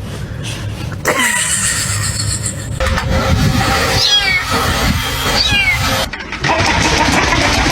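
A cat meowing.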